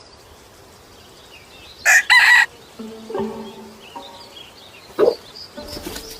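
A rooster crowing once, loud and brief, about two seconds in, over faint bird chirping. Soft low music notes come in after it.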